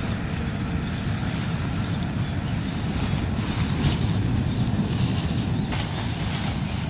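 Wind buffeting the microphone: a steady, low, gusty rumble with no distinct events.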